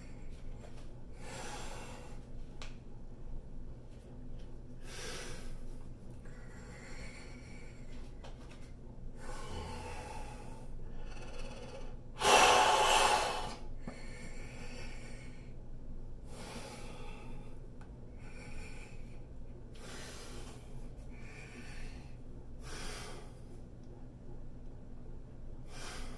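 A man breathing heavily through the strain of flexing his muscles: about a dozen audible exhales spaced a second or two apart, one much louder, longer blast of breath about halfway. A faint steady low hum runs underneath.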